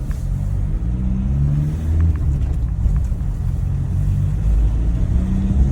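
Ford Transit van's engine pulling as the van is driven, its pitch rising as it accelerates about a second in and again near the end.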